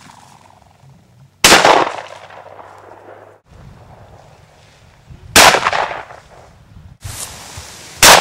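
Three shotgun shots fired at flushing bobwhite quail, about 1.5 s, 5.5 s and 8 s in. Each is a sudden loud blast with a short echo trailing off after it.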